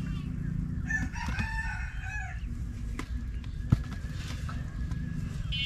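A rooster crows once, about a second in, the call lasting about a second and a half. Two short knocks follow, about three and four seconds in, over a steady low rumble.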